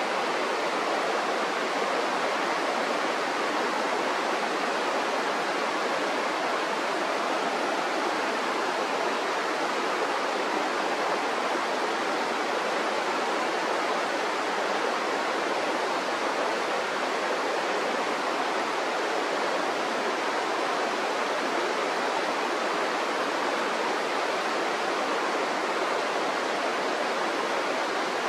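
Mountain river rushing, a steady, unchanging sound of flowing water.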